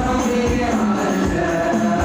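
Shalawat devotional song sung by a group in long held notes, over frame drums beating a steady rhythm.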